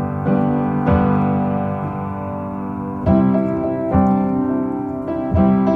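Background music: a piano playing sustained chords, struck anew every second or two, with no singing.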